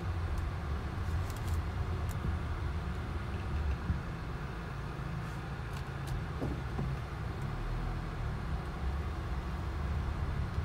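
Steady low rumble of a car's engine and tyres heard inside the cabin while driving slowly, with a few faint ticks.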